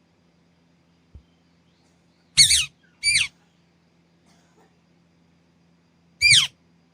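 Pet green ring-necked parakeet giving three loud, harsh squawks, each falling in pitch: two in quick succession a couple of seconds in, and one more near the end. A soft low thump comes about a second in.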